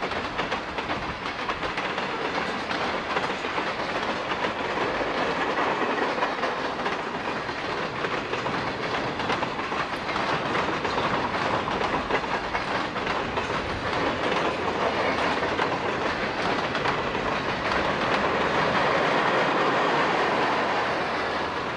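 Southern Pacific freight train passing close by: steady clatter of freight-car wheels over the rails, with the diesel locomotives in the train going by, getting a little louder near the end.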